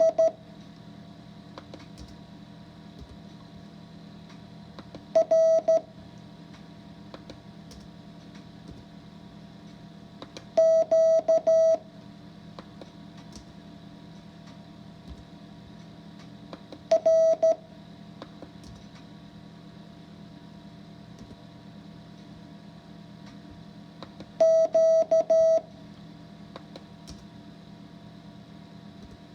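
Morse code practice tones: single characters keyed as short and long beeps at one steady mid pitch. There are five groups, each followed by a pause of several seconds for copying. A steady low hum runs underneath.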